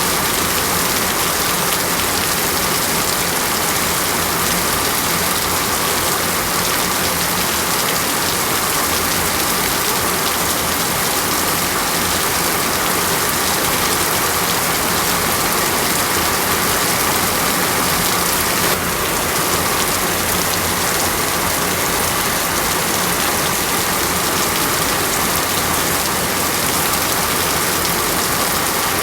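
Steady, heavy tropical rainforest rain: an even, continuous downpour.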